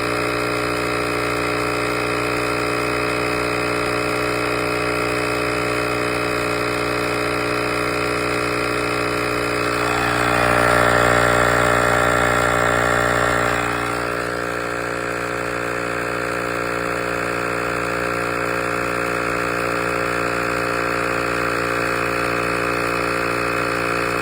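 NUSTE portable tire inflator's small electric air compressor running steadily while pumping up a tire toward 70 PSI, a steady pitched hum that grows louder for a few seconds about midway.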